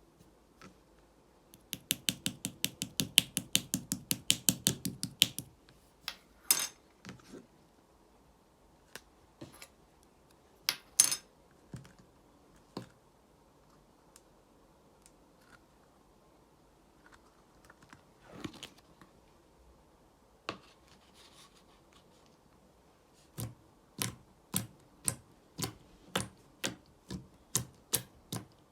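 Slime being played with by hand, giving sharp clicks and pops: a fast run of clicks for a few seconds near the start, scattered single pops in the middle, and an even series of about two clicks a second near the end.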